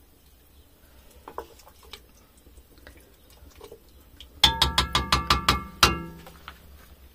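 Metal spoon clanking against a cooking pot: a quick run of about ten ringing strikes over a second and a half, about four seconds in, with a few light clicks before it.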